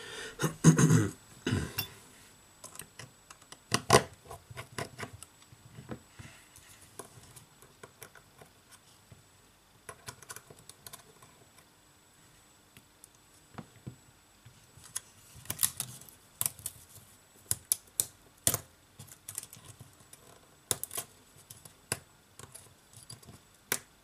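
Small repair tools clicking and tapping against an iPhone 7's internal parts during disassembly: scattered sharp clicks, the loudest about a second in and about four seconds in, and a busier run of them about two thirds of the way through.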